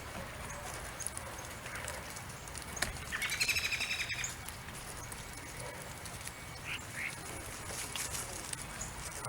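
A bird gives one rapid chattering call of about a second a few seconds in, followed later by two short chirps, over a steady outdoor hiss.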